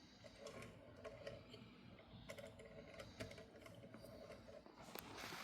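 Faint clicking and a low whir from a rotary telephone dial being turned and let spin back as a number is dialled.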